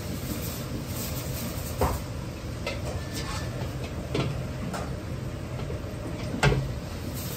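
Batter-coated chicken pieces deep-frying in a wok of hot oil, the oil bubbling and sizzling over a steady low rumble from the burner. A perforated metal ladle knocks against the wok three times as more pieces are slid in, the last knock the loudest.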